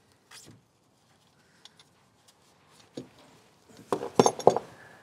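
Light clinks and knocks of metal parts and tools being handled under a tractor, with a quick cluster of sharp metallic clinks about four seconds in.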